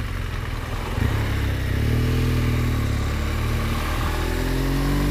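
BMW R1200 GS flat-twin boxer engine under way, its note jumping about a second in, rising and falling in pitch with the throttle, then climbing again near the end. A steady rush of wind noise runs underneath.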